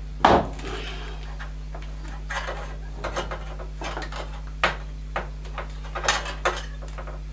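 Scattered clicks, taps and light scrapes of hands fitting small screws and plastic and metal parts back into a gas boiler's controls, over a steady low hum. The sharpest click comes just after the start.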